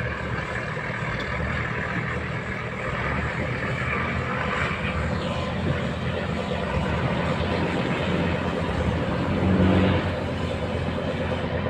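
Fishing boat's engine running steadily, briefly swelling louder with a pitched note near the end.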